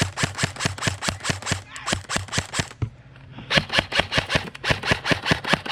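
Airsoft rifle firing a rapid string of sharp cracking shots, about six or seven a second, pausing for about half a second near the middle, then firing a second string.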